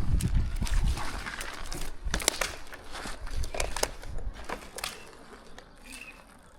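Twigs and branches crackling and snapping in a run of scattered sharp clicks, with a low rumble in the first second, fading towards the end.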